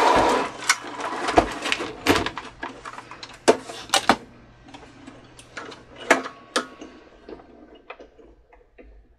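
Clicks, knocks and rattles of the plastic and metal parts of a Cricut Expression cutting machine being handled as it is taken apart and its drive belt worked off, with a louder scraping rush right at the start. The knocks thin out and grow faint over the last couple of seconds.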